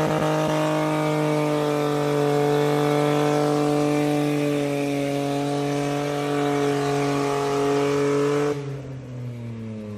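Opel Corsa engine held at high, steady revs, then let off suddenly about eight and a half seconds in, its pitch falling as the revs drop.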